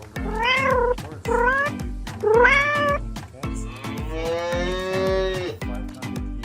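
A cat meowing three times in short calls that rise and fall, then giving one longer, lower call, over background music with a steady beat.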